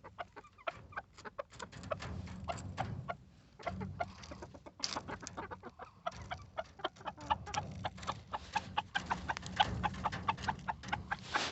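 Chickens clucking softly while pecking at leaves, with many short sharp ticks throughout.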